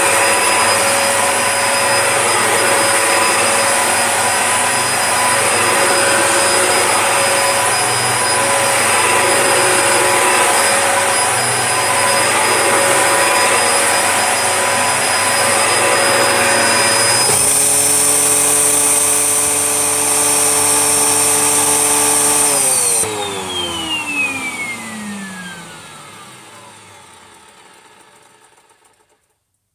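Dyson DC01 upright vacuum cleaner running on carpet with a high motor whine, its sound rough and ready; the tone shifts about two-thirds of the way in. It is then switched off and the whine falls steadily as the motor spins down.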